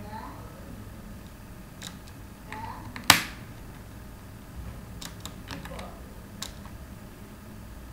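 Computer keyboard keys clicking in scattered, irregular keystrokes, with one sharper, louder click about three seconds in.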